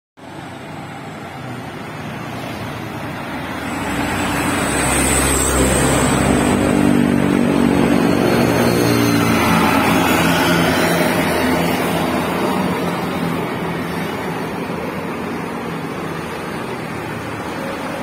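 Coach bus driving past, its engine sound building to the loudest from about four to twelve seconds in, then fading back into steady road traffic.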